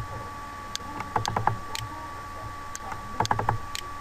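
Clicks of a computer mouse and keyboard: single clicks, with two quick runs of three or four clicks about a second in and again near three seconds in, over a faint steady tone.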